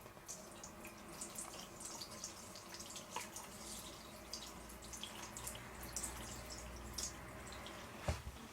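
Straight razor cutting through stubble: an irregular run of crisp, high crackles, with one sharper click near the end.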